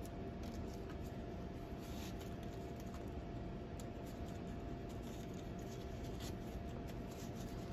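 Faint rubbing and small clicks of nylon webbing being threaded through a plastic chest-strap buckle on a scuba harness, over a steady faint hum.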